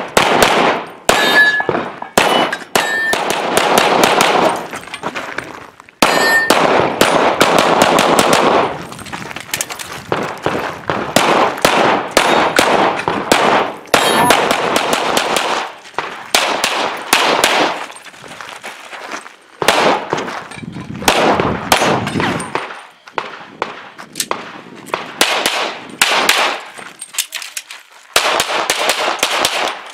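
Rapid pistol fire from an Open-division .38 Super Comp competition pistol, shots coming in quick strings with short pauses between them, mixed with steel targets clanging and ringing when hit.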